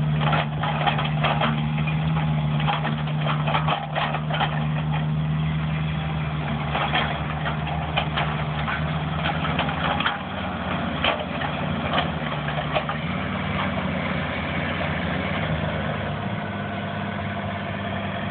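Excavator diesel engine running steadily, its note shifting about ten seconds in, with frequent sharp clicks and knocks over it.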